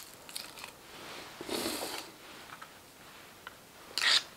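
Curved wrecking knife carving wood by hand: a few light ticks of the blade, a half-second shaving cut about one and a half seconds in, and a short, sharper and louder cut near the end.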